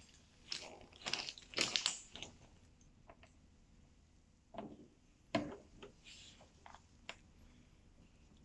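Scattered clicks and knocks of hard plastic and metal parts being handled and fitted together as a portable sink is assembled, with a metal faucet spout pushed into the plastic basin. The clicks come in small clusters about a second in, around five seconds in, and near seven seconds.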